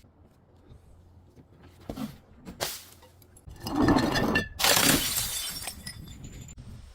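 Glass bottle smashing: a couple of light knocks, then two loud shattering crashes about four and five seconds in, followed by glass shards clinking as they settle.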